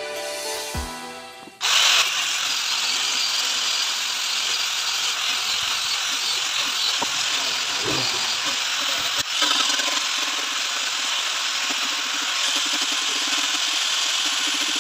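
Background music that cuts off after about a second and a half, followed by a handheld electric random orbital sander running steadily on a wooden board, a loud even whirring hiss.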